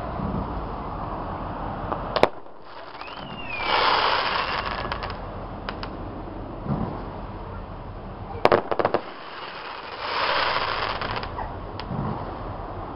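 Aerial fireworks going off. A sharp bang comes about two seconds in, followed by a short falling whistle and a crackling fizz. Past the middle there is a quick cluster of cracks, then another spell of crackling.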